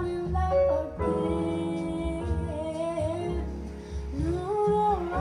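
A song played back over JBL L77 speakers driven by a home-built EL84 push-pull tube amplifier: a voice singing long, gliding notes over guitar and bass.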